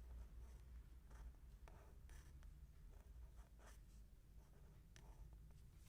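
Handwriting: faint, short scratching strokes of a pen tip on paper, in an irregular rhythm as letters are written out.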